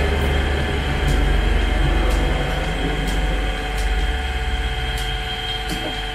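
Low, steady rumble of road traffic going by. It swells about a second in and slowly fades, over a faint steady hum.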